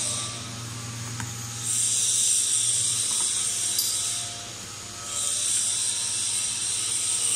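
YD-650FQ slitting machine running, with a steady electric hum under a high hissing whir. The whir stops twice for about a second and starts again, and a few faint clicks sound in between.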